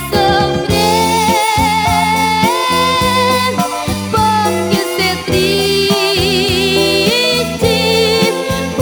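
Gospel band music from a 1983 evangelical LP transferred from vinyl: bass and drums keep a steady beat under long held melody notes with vibrato, with no lyrics sung.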